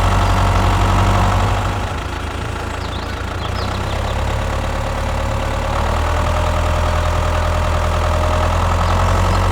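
Tractor engine idling steadily with a low, even hum, dipping a little in level about two seconds in.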